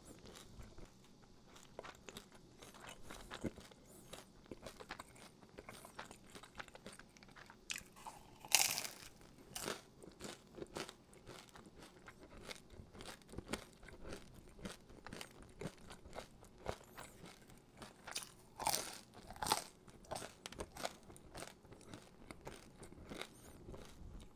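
A person biting and chewing crusty fougasse bread: a run of crisp crunches, with louder bites about a third of the way in and again around three-quarters of the way through.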